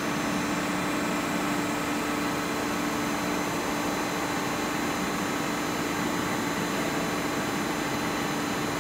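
Skoda WD 160 horizontal boring mill running as its ram feeds outward: a steady machine hum with a constant low tone and faint high whines over it.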